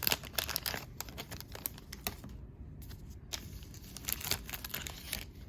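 Trading-card pack wrapper crinkling and cards being handled: quick, irregular clicks and rustles, thickest in the first two seconds and picking up again later.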